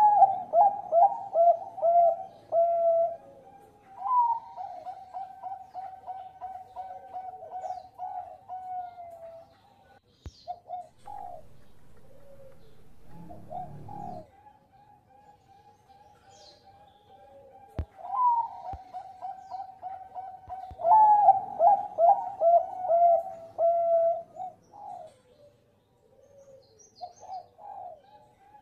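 Zebra dove (Bangkok-bred perkutut) singing: loud runs of rapid staccato cooing notes that fall slightly in pitch, at the start, about four seconds in, and again past halfway, with softer scattered coos between. A brief low rumble comes around halfway through.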